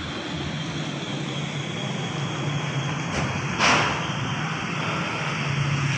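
Steady low hum of an engine running in the background under an even hiss, with a short rushing noise a little past halfway.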